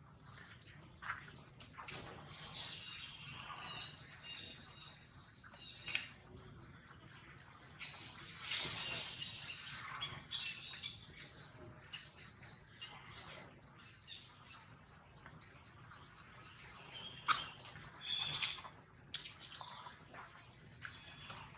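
A high chirp repeated evenly about three times a second, typical of a cricket or cicada in the forest, stopping near the end. A few brief scuffles from the monkeys break in, near the middle and toward the end.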